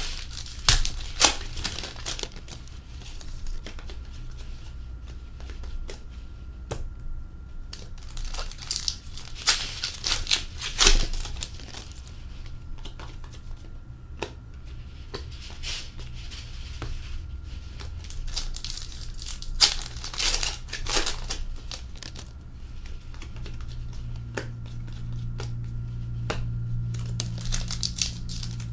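Hockey card packs being torn open and their wrappers crinkled, in irregular sharp bursts, with cards handled in between. A low steady hum runs underneath and grows louder near the end.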